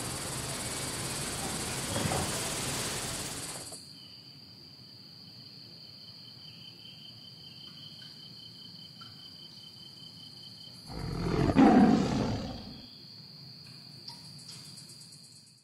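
Outdoor background hiss with a steady high insect-like chirring. After about four seconds the hiss drops away, leaving the high steady tone and a fainter pulsing chirr. About eleven seconds in, a loud low rush swells up and fades over about two seconds.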